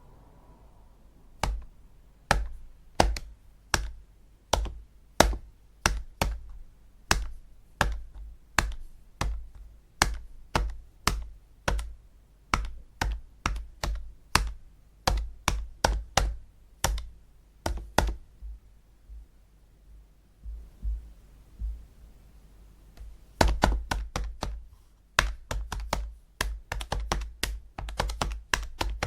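Calculator keys pressed one at a time with sharp plastic clicks, about two presses a second. After a pause of a few seconds the presses come again in a quicker, denser run.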